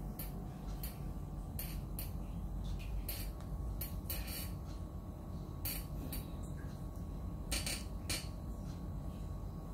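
Irregular soft clicks and rustles of a bare foot rubbing a small dog's fur as it lies on a tile floor, about ten in all, over a steady low hum.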